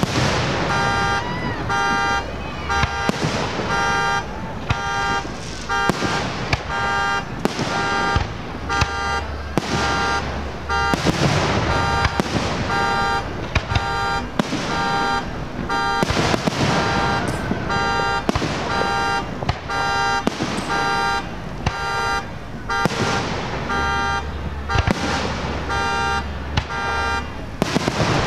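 Fireworks bursting and crackling, with a car alarm sounding a steady string of short beeps under the blasts.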